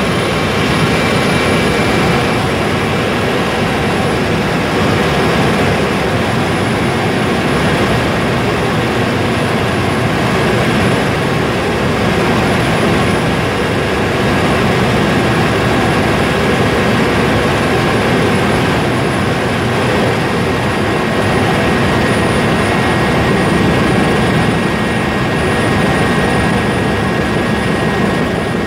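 Helicopter cabin noise in flight: the loud, steady drone of the engine and rotor, with a thin steady high whine over it.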